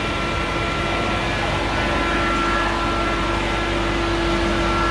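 Steady machinery hum of a factory hall, with a low steady tone and a higher steady whine over a constant rush of noise.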